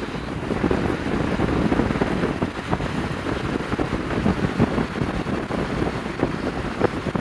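Wind buffeting the microphone of a phone held at a moving car's side window, over steady road and tyre noise from the car driving.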